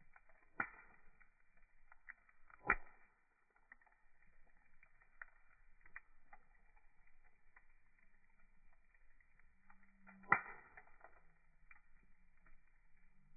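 Wood fire crackling: small ticks throughout, with three louder pops, about half a second in, near three seconds, and about ten seconds in.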